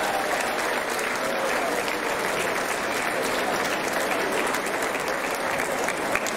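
Audience of students and staff applauding steadily, with faint voices beneath the clapping.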